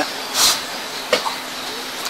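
A pause in a man's speech: a short breathy hiss about half a second in and a small click a little after one second, over a steady background hiss.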